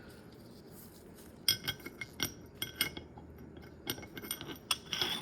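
Metal parts of a field-stripped Glock pistol being handled, giving a run of sharp clicks and light clinks with a brief ring. The clinks start about a second and a half in.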